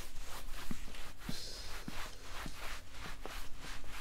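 Laundry-work sound effects: short scrubbing and knocking strokes repeating evenly, about three a second.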